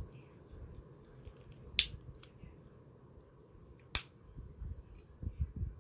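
Metal flip-top lighter lid snapping, two sharp clicks about two seconds apart with a few fainter ticks between, over low handling rustle that grows near the end.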